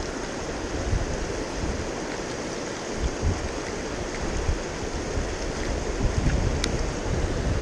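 Rushing river water with wind buffeting the microphone in gusts. A faint click near the end.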